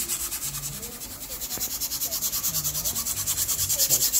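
Sandpaper rubbed by hand in quick short back-and-forth strokes, about eight a second, along the edge of a 3D-printed plastic part to flatten its uneven printed surface. The strokes ease off a little about a second in and grow stronger toward the end.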